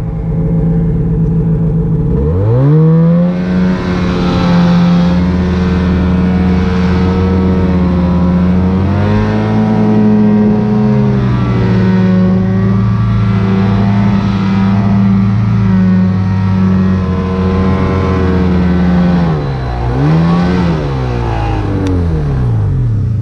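Snowmobile engine idling, then revved hard about two seconds in and held at high revs while the sled ploughs through deep powder, its pitch rising and dipping with the throttle. Near the end the revs drop, rise once more briefly and fall away as the sled bogs down and gets stuck in the snow.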